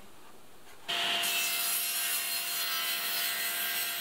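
Table saw running, its circular blade crosscutting a wooden board to length. The sound starts abruptly about a second in and holds steady, with a constant whine under the cutting noise.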